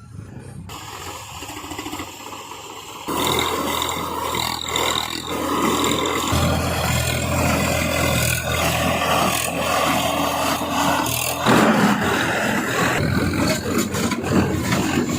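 Mahindra Bale Master SQ180 square baler running behind a tractor: a dense mechanical clatter of rapid knocks over the steady hum of the engine. It gets louder over the first few seconds, stepping up sharply about three seconds in.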